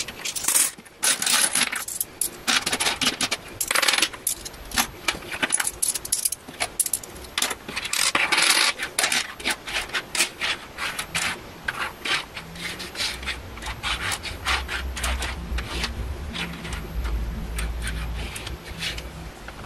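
British coins (£1 coins and other change) clinking and sliding on a desk as they are counted by hand and pushed into small groups. The clicks come in quick clusters, densest in the first half, then fewer and softer near the end.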